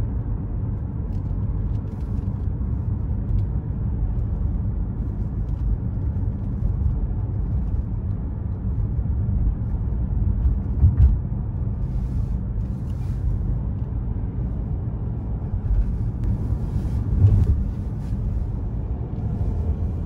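Steady low road and engine rumble inside a moving car's cabin at highway speed, with two brief louder thumps, about halfway through and again near the end.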